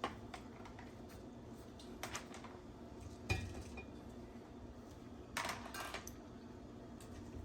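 Bottles being set down on the shelves of an under-sink organizer: a few separate knocks and clinks of hard objects, one of them ringing briefly, with a small cluster about two thirds of the way through.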